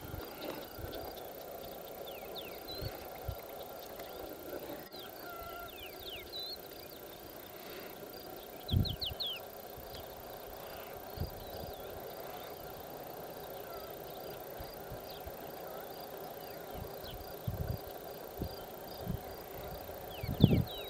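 Open-air ambience: an insect chirping steadily about once a second, with scattered brief high bird chirps in small clusters and a few low thumps.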